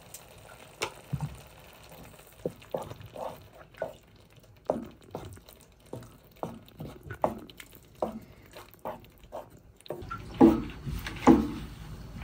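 Cooking cream being stirred into tomato sauce in a pan: irregular wet plops and light knocks, one or two a second, growing denser and louder near the end.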